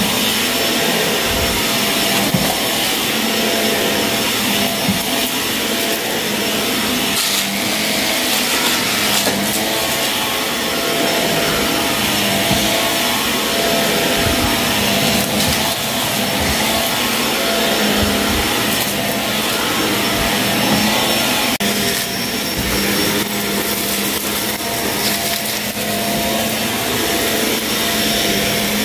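Shark vacuum cleaner running steadily over a dirty carpet, its motor humming under a constant rush of suction, with scattered short crackles as debris is sucked up.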